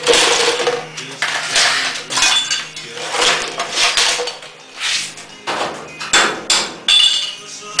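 Irregular metal-on-metal knocks and clanks on the sheet steel of a 1963 Chevy C10's door pillar and kick panel as it is worked by hand, about ten strikes, a few ringing briefly.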